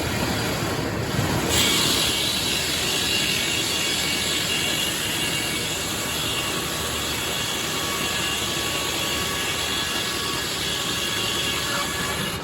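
Sawmill running and sawing through red oak. A harsher, higher cutting noise comes in about a second and a half in and holds steady, then drops off at the end.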